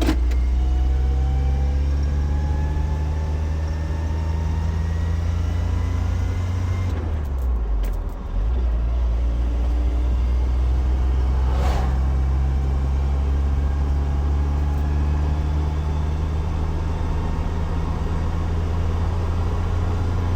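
Truck engine heard from inside the cab: a steady low drone whose pitch slowly rises. The sound dips briefly about eight seconds in, then carries on, with a single short knock a few seconds later.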